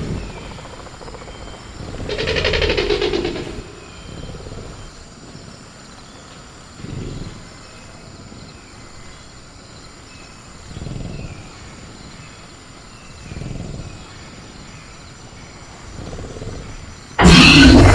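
Sound-designed velociraptor growling from a cage: a loud raspy growl about two seconds in, then softer low growls every few seconds. Near the end a sudden, much louder clattering crash as the cage is rattled.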